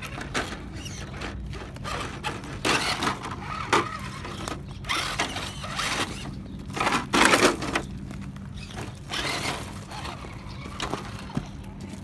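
Irregular crunching and knocking of rocks and loose gravel, heaviest about two-thirds of the way through, over a steady low hum.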